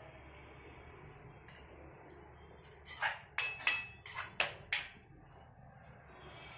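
Metal ladle knocking and scraping against a steel serving bowl while curry is dished out: a quick run of about six sharp clinks about three seconds in.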